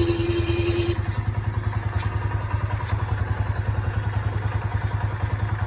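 Motorcycle horn sounding a steady held tone that stops about a second in, over the motorcycle's engine idling with a fast, even throb.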